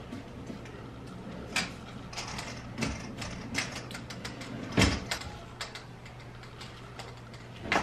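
A hand whisk and then a spatula stirring cake batter in a stainless steel mixing bowl: irregular soft scrapes and clinks of the utensil against the metal, with one sharper knock about five seconds in.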